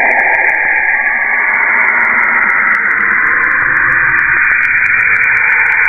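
Audio presented as the sound of Saturn, a 'deep hum' from space: a loud, steady static-like hiss with faint scattered clicks.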